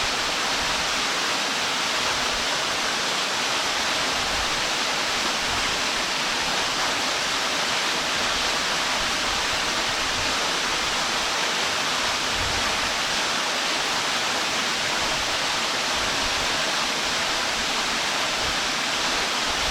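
Waterfall: water falling and splashing, a steady, even rush.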